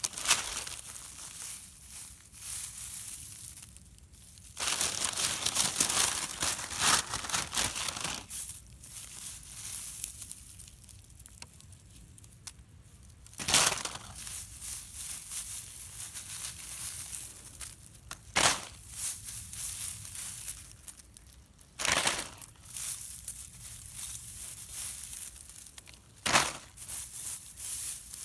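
Dry straw stubble and loose grain crunching and rustling as hands gather it, in uneven bursts with a few sharp crackles.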